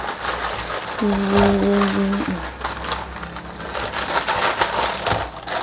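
Clear plastic bag crinkling and rustling as hands work it open. About a second in, a person hums one held note for just over a second.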